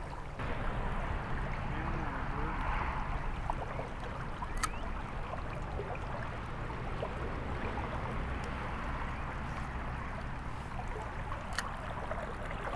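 Small stream running steadily, with a low rumble underneath. Two sharp clicks, one about a third of the way in and one near the end.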